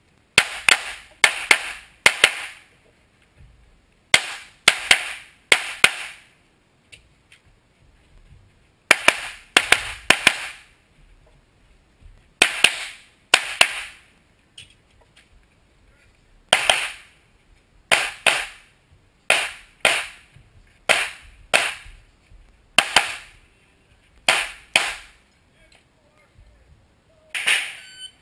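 Pistol shots in a practical-shooting course of fire: about thirty sharp cracks, fired in quick pairs and strings of three or four about half a second apart. Gaps of a second or more between strings mark the shooter moving to new positions.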